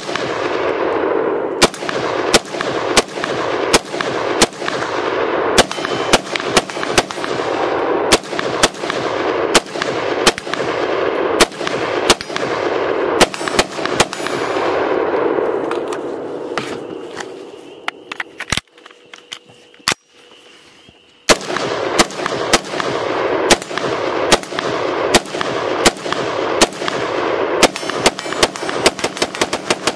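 SIG Sauer MCX Rattler short-barrelled rifle in 5.56 firing rapid strings of shots, a few a second. The firing pauses for about three seconds past the halfway point, then resumes faster.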